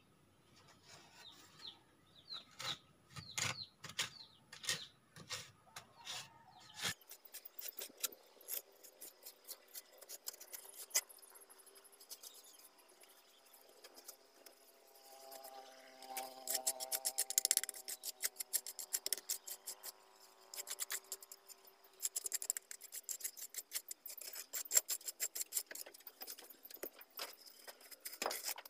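Trowel scraping and patting wet cement mortar in quick repeated strokes while a concrete sink counter is being smoothed. The strokes come thicker in the second half.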